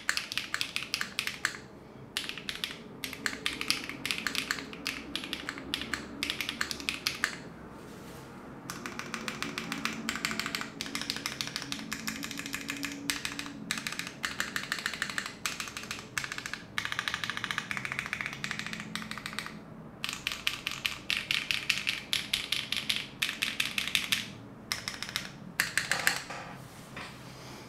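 Typing on a QK60 60% mechanical keyboard with factory-lubed HMX Swift linear switches, GMK Dandy keycaps and an FR4 plate with no foam. Quick runs of keystrokes are broken by a few short pauses, and near the end the keys are struck with one hand.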